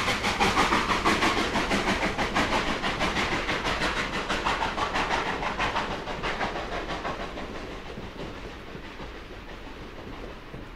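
Steam train running, with a quick, regular beat that slowly grows fainter.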